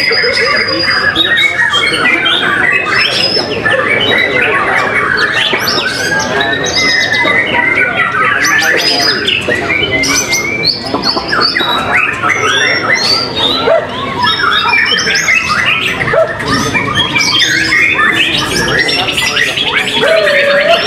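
White-rumped shamas singing loud and without pause: a dense tangle of rapid varied whistles, trills and harsher notes, several birds singing over one another.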